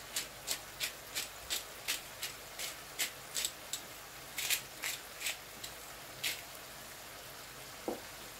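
Pepper grinder being twisted over the pan: quick scratchy grinding strokes, about three a second, stopping about six seconds in.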